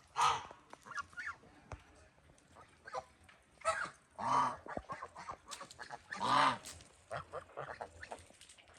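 Geese honking: a few loud, drawn-out honks with many shorter calls in between.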